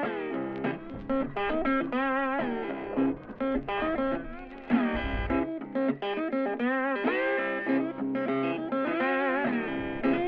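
Background music: a guitar playing a melody of wavering, bent notes. A brief low thump about five seconds in.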